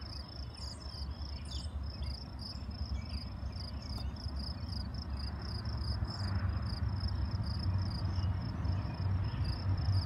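Crickets chirping in a steady high pulse, about four chirps a second, over a low rumble that slowly grows louder as a distant train approaches.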